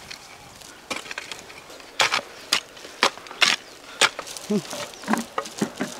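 Hoe chopping into loose soil, a series of irregular sharp strikes about half a second to a second apart.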